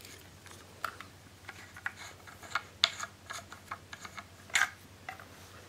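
Irregular small clicks and taps of plastic and metal parts as the Sky-Watcher Star Adventurer tracker and its green clamp adapter are handled.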